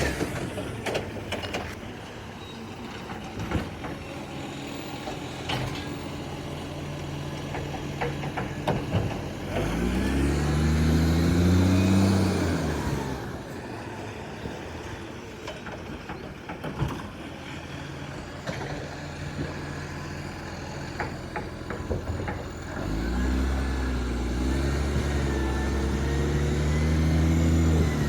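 Garbage truck's diesel engine running, revving up and back down about ten seconds in, then revving up again near the end and holding there, with scattered knocks and clanks in the quieter stretch between.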